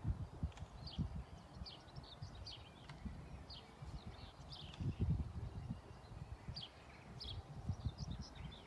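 Small birds chirping in short repeated calls, over wind buffeting the microphone in irregular low gusts.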